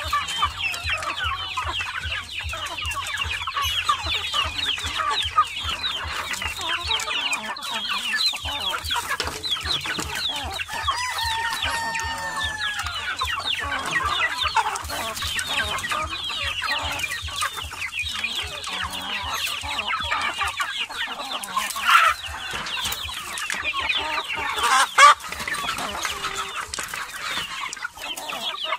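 A flock of chickens clucking and chirping busily and without pause as they feed, with one drawn-out call that rises then falls about a third of the way in and two louder sharp sounds near the end. A low, even pulsing runs underneath for much of the time.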